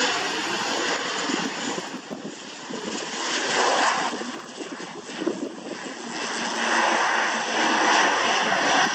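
ATR 72 turboprop airliner's twin turboprop engines running as it rolls along the runway: a rushing drone that dips twice, then swells again over the last few seconds.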